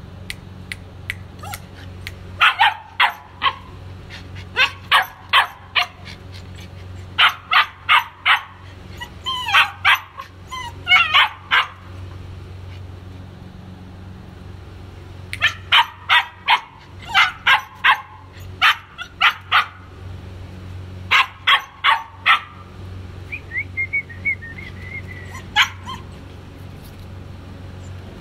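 White German Shepherd puppy yapping in quick runs of short, high-pitched barks, several at a time, with a brief thin whine near the end.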